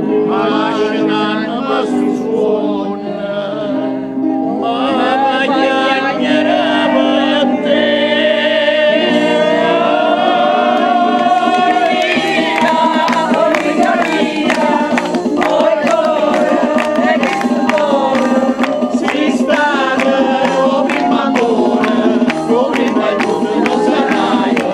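Electronic keyboard playing a song while a group of people sing along. From about halfway, a steady beat of hand claps joins in.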